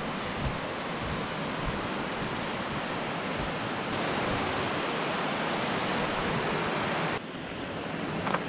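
Steady rush of river water flowing through a rocky canyon, a little louder from about halfway and dropping off suddenly near the end.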